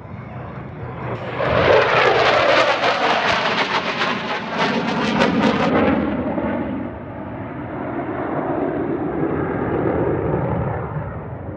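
Military jet fighter passing low overhead: a loud jet roar swells about a second in, crackling for several seconds, then eases to a lower steady rumble as it moves away.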